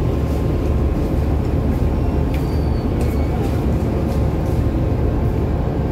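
Car ferry under way, heard on board: a steady low engine rumble with a faint steady hum above it.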